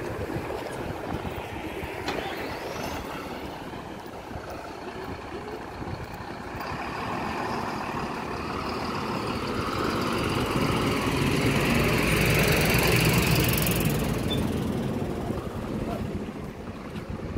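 A motor vehicle drives past, its engine noise with a steady whine growing louder over several seconds to a peak a little past the middle, then fading, over general street traffic.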